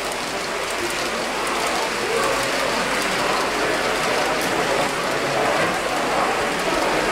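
H0-scale model trains running steadily along the layout's track, an even mechanical rattle of small wheels and motors.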